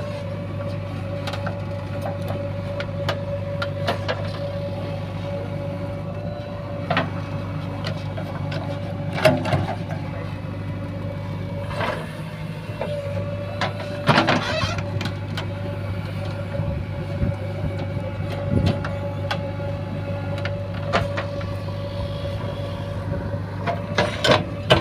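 JCB 3DX backhoe loader's diesel engine running steadily with a constant hum, punctuated by a few sharp knocks and clanks from the working machine.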